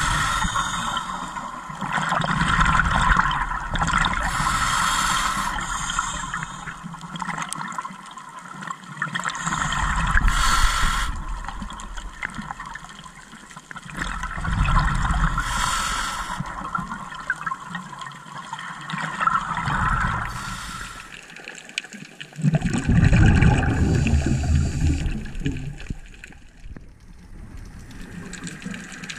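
Scuba diver breathing through a regulator, heard underwater: bursts of bubbling exhaled air every four to six seconds, with a short hiss between them.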